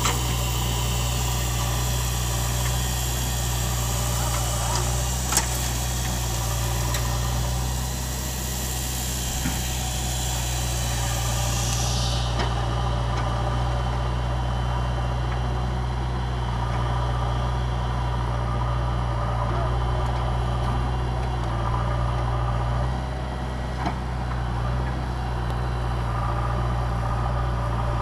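Diesel engines of a JCB 3DX backhoe loader and a Mahindra 595 DI tractor idling side by side, a low steady running sound with a few small clicks.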